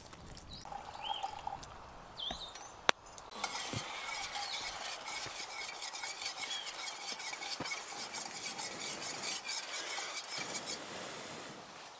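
A spoon stirring pancake batter in a metal camp cup: a fast, continuous scraping and clinking that starts a few seconds in and stops shortly before the end.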